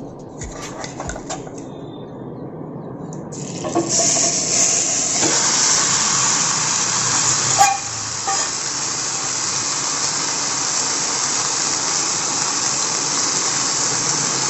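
Whole marinated chicken laid into a preheated, oil-greased AMC kadai. It starts to sizzle about four seconds in and keeps sizzling steadily, with one knock near the middle.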